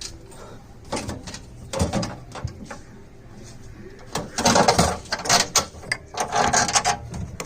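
Knocks, then two longer bouts of clattering and scraping, as the metal freezer compartment and fridge panels are handled and fitted into place.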